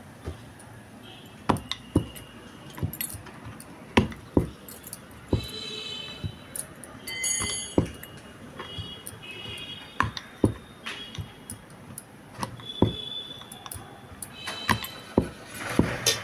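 Wooden rolling pin knocking and clacking on a wooden rolling board (chakla) as a stuffed paratha is rolled and turned, in irregular sharp knocks. Several short high squeaks come in between the knocks.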